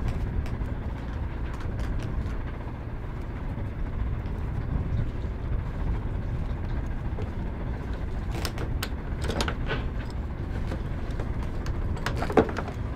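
Metal clinking of a Mantis anchor bridle hook being fitted onto anchor chain by hand. There are several clicks and rattles about eight to ten seconds in and one sharper clack near the end, all over a steady low rumble.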